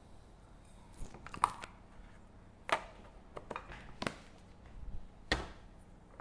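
Plastic food containers being handled and set down on a kitchen counter: a scattered series of short clicks and knocks, the loudest about one and a half seconds in and near the end.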